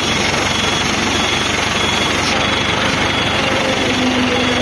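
Mobile hydraulic crane's diesel engine running steadily under load while hoisting a crate. A faint high beep repeats about twice a second over it.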